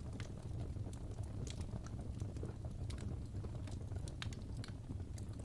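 Wood fire burning in a fireplace: irregular sharp crackles and pops, a few each second, over a steady low rumble.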